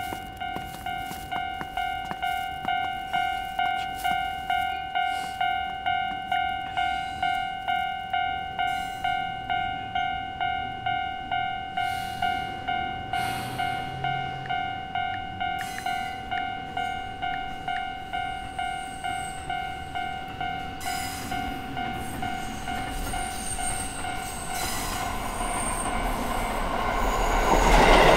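A Japanese railway level-crossing warning bell dings steadily, about one and a half strikes a second. In the last few seconds a train approaches and passes, its noise swelling to the loudest point.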